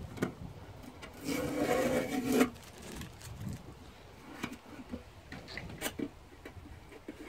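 A cloth rubbing over the metal lid of an old toolbox, with soft scuffs and small knocks. About a second in, a louder steady tone lasts just over a second and then cuts off.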